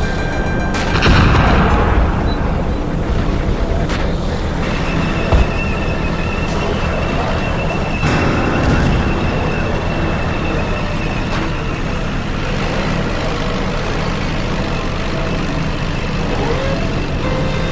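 Heavy tank engine sound rumbling steadily, with a boom about a second in and a sharp knock a few seconds later.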